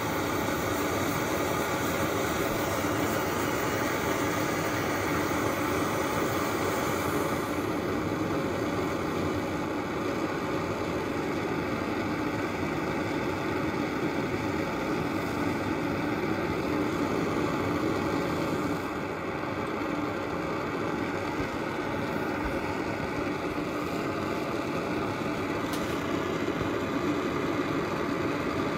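Brass Radius No. 20 pressure stove burning with a steady rushing burner noise. The noise dips slightly about two-thirds of the way through.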